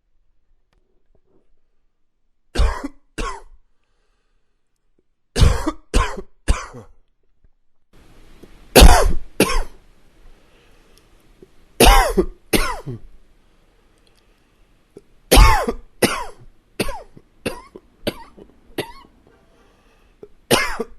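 A man coughing in short bouts of two or three hard coughs, with a longer run of about six coughs in a row in the second half.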